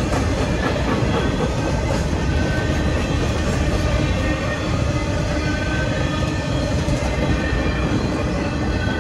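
Freight train's boxcars rolling past at close range: steady wheel-on-rail rumble and clatter.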